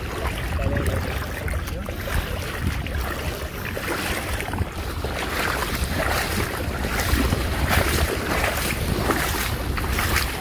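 Splashing steps of people wading through shallow water, the splashes coming thick and irregular from about halfway in, over a steady rumble of wind on the microphone.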